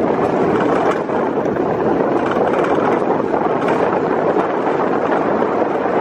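Alpine coaster sled running fast along its steel tube track: a steady rolling noise of the wheels on the rails, mixed with wind noise on the microphone.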